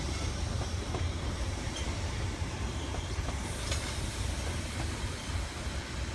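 Steam train rolling along the track: a steady low rumble, with one sharp click a little past halfway.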